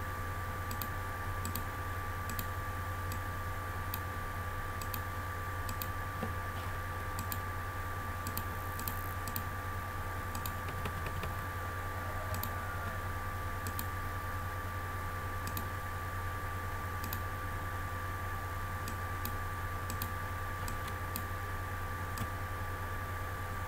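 Computer keyboard keys and mouse buttons clicking in scattered, irregular taps, over a steady electrical hum with a faint high whine and hiss.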